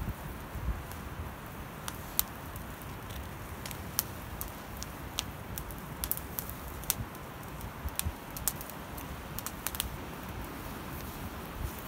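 Open wood fire crackling under a frying pan, with irregular sharp snaps over a steady hiss.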